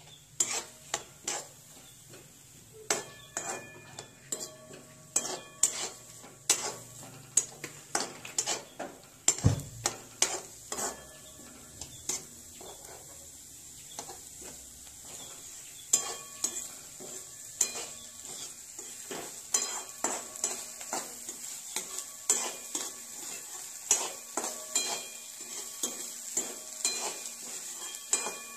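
A spatula scraping and knocking against a metal kadhai as chopped onion is stirred and sautéed in sizzling oil, the pan ringing briefly after the stronger strokes. The strokes come irregularly, a few a second, with a short pause around the middle. The onion is being fried until it turns brown.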